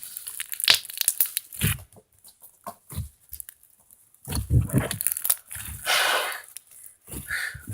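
Plastic bag crinkling, rustling and tearing in irregular crackles as hands work a slime out of its package.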